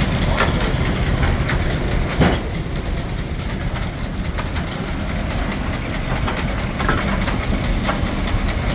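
Steam engine driving a Frick sawmill, running steadily with a low rumble and light mechanical clatter, and a sharp clank about two seconds in.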